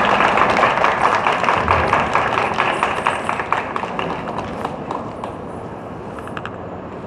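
Audience applauding, the clapping thinning out and fading away about five seconds in.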